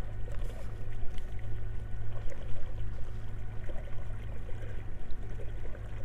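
Bass boat's outboard motor running steadily at speed, a constant low hum under the rush and splash of water along the hull.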